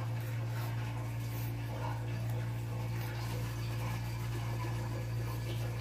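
A steady low hum that holds an even pitch and level throughout, with no other distinct sound.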